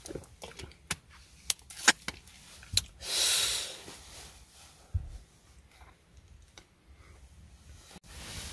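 Handling noises from camp gear: a series of sharp clicks and taps, a short loud hiss about three seconds in, and one dull thump a little later.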